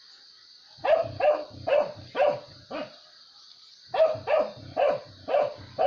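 A dog barking repeatedly, about two barks a second: a run of five barks, a pause of about a second, then another steady run of barks.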